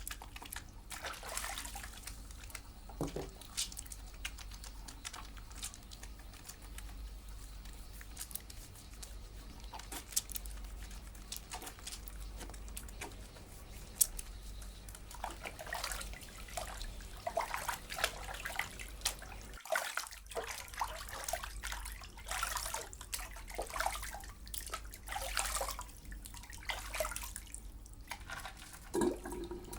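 Water splashing and dripping in irregular spurts, with a brief break about two-thirds of the way in.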